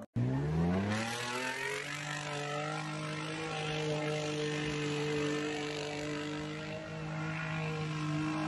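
Mitsubishi Pajero Sport's engine revving up over the first couple of seconds, then held at high, steady revs as the SUV drives hard through deep mud.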